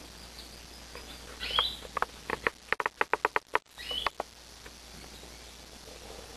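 Small aviary birds calling: two short down-slurred chirps about a second and a half and four seconds in, with a quick run of about ten short clicking notes between them.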